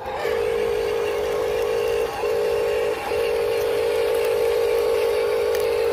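Huina 1573 RC dump truck's electric drive whining at a steady, flat pitch as it drives loaded, with short breaks about two and three seconds in when the throttle eases.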